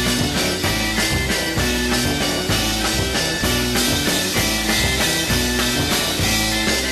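Instrumental psychedelic rock music with a steady drum beat and guitar.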